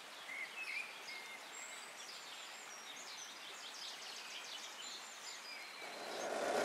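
Outdoor ambience: birds chirping and whistling over a steady hiss, with a noise swelling up near the end.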